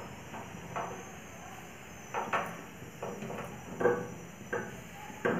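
A steel saucepan held with metal pan tongs knocking and scraping on the gas stove's burner grate as the tea is boiled and swirled. There are about six sharp clinks at uneven intervals, the loudest about four seconds in.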